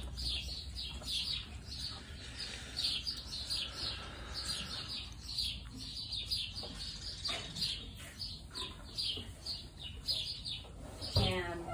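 Small birds chirping: short, high chirps repeating several times a second throughout. A brief, louder pitched call comes near the end.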